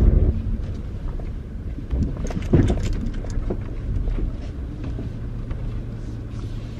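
A 2018 Kia Soul driving, heard from inside the cabin: a steady low rumble of engine and road, with a few short knocks and clicks a couple of seconds in.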